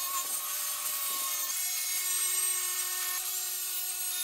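Cordless DeWalt 6-1/2-inch circular saw running through a sheet of plywood: a steady motor whine over the hiss of the blade cutting, the pitch settling after about a second and a half.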